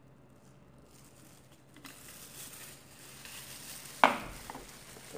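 Faint handling sounds, then about four seconds in a single sharp knock with a short ring, a glass oil bottle set down on the tiled counter, followed by a softer tap.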